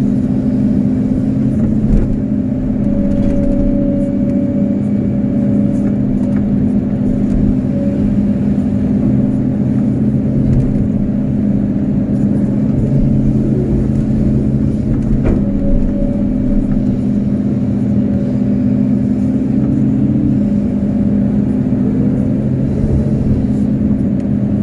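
Kobelco SK250-8 hydraulic excavator's diesel engine running steadily under working load while the bucket digs mud, a constant low drone. A single sharp click comes about fifteen seconds in.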